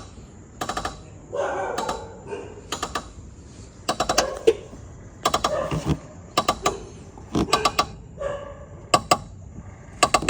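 Worn strut top mount knocking and creaking as the suspension is worked: irregular sharp clicks, often two or three close together, with some creaks. It is the sign of a bad strut mount that needs replacing.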